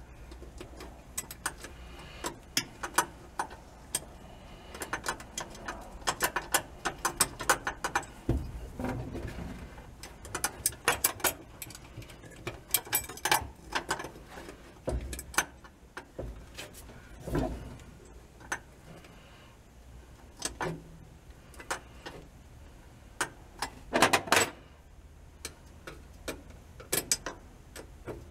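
Runs of light metallic clicks and ticks, with a few duller knocks, as screws are started and driven by hand into a parking brake boot retainer plate.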